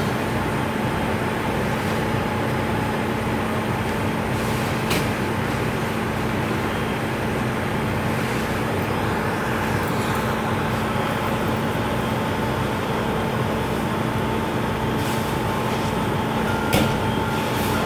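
Fire engine's engine running steadily beside the scene, a constant drone with a steady hum over a fast low pulse. A couple of sharp clicks cut through it, the louder one near the end.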